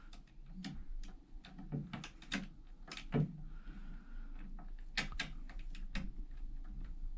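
Small hard objects being handled: a string of irregular light clicks and knocks.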